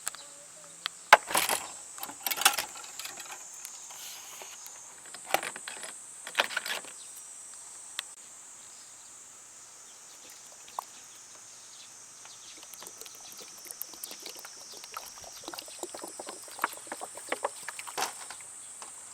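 Insects keep up a steady high-pitched chirring outdoors. Over it come loud clusters of knocks and scraping, about a second in and again around five seconds, then a run of small clicks and taps near the end.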